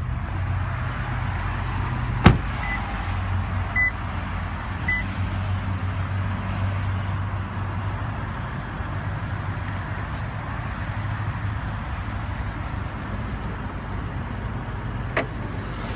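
Lexus GS F's 5.0-litre V8 idling steadily. A sharp click about two seconds in is the loudest sound, and a lighter click comes near the end. A few short high beeps sound between about three and five seconds in.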